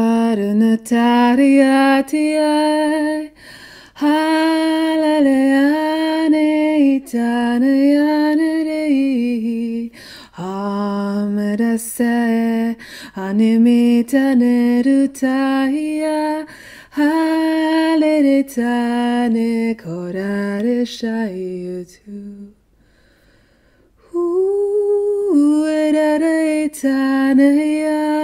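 A woman singing alone, unaccompanied: a slow melody of long held notes that step up and down, with a brief pause about three quarters of the way through.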